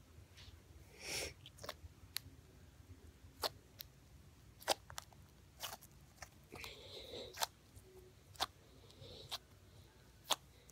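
Blue slime being squeezed and kneaded by hand, giving scattered small clicks and pops, about a dozen, with a couple of softer squelching smears about a second in and again around the middle.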